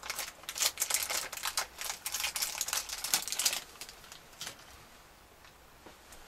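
Clear plastic bag of kit parts crinkling and rustling as it is handled, with small plastic pieces clicking. The sound is dense for about three and a half seconds, then thins to a few light ticks.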